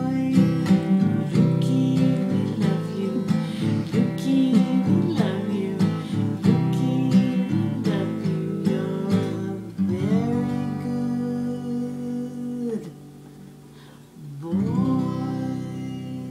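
A woman singing to her own strummed acoustic guitar. After about ten seconds the strumming gives way to two long held notes, with a brief lull between them.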